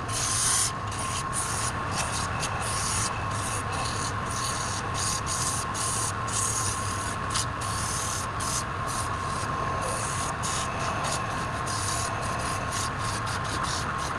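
Power tool running steadily on wood, a constant motor hum with a thin high whine under a rough rubbing, sanding-like hiss that briefly breaks off again and again as the tool lifts from and meets the surface.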